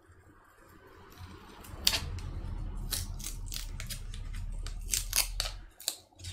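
Flat metal pry tool clicking and scraping against a MacBook's aluminium case as it levers up the glued metal plate behind the trackpad: a string of sharp clicks from about two seconds in, over a low rumble of handling that stops near the end.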